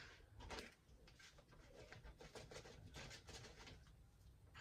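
Faint, quick patter of seasoned salt being shaken from its container into a plastic bag of cornmeal.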